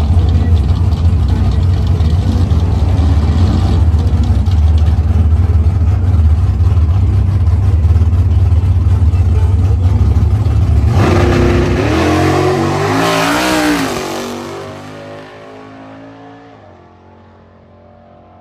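A car engine running loud with a deep, steady rumble, then revved several times with the pitch rising and falling about eleven to fourteen seconds in, before the sound fades away.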